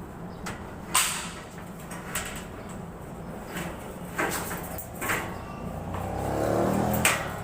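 Vehicle running with a steady low hum, sharp clunks and rattles several times, and the engine note building and rising a little before the end.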